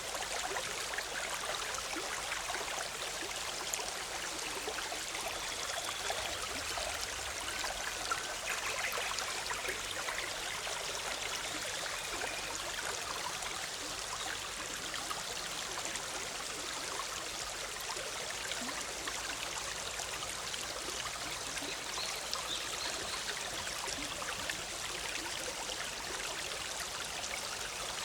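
Shallow forest stream of the Big Sur River flowing and bubbling over rocks in a steady, even rush.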